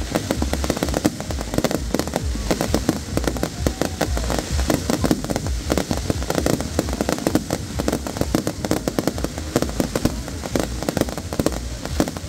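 Fireworks display: a dense, continuous run of bangs and crackles, many shells bursting each second with no break.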